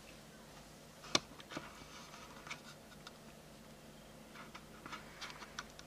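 Faint low hum with scattered small clicks and scratchy ticks, a cluster about a second in and another near the end.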